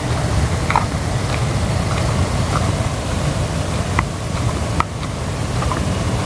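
Walking through dry brush: scattered short crackles and ticks of twigs and leaves over a steady low rushing noise.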